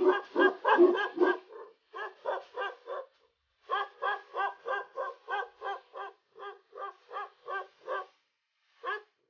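Tibetan mastiff barking in a steady run, about three deep barks a second, with two short pauses and a single last bark near the end.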